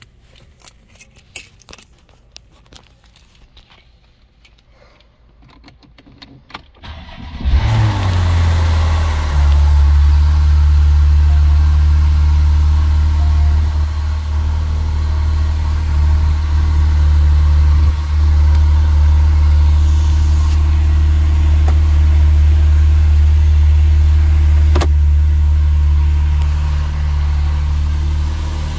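2017 Porsche 911 Carrera's twin-turbo flat-six starting about seven seconds in, flaring briefly, then settling into a steady idle, heard from inside the cabin. A few faint clicks come before the start.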